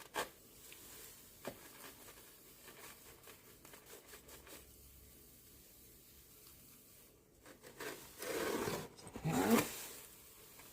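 Powdered washing soda being scooped with a measuring cup and poured into a bowl: soft scraping and rustling, with a louder rushing pour about eight seconds in, followed by a brief squeaky sound.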